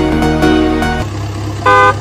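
Melodic background music that stops about halfway through, followed by a low steady hum and a short vehicle horn honk near the end.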